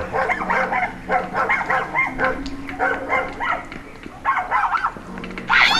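Dogs barking in clusters of quick, short barks, with a sharp high yelp near the end.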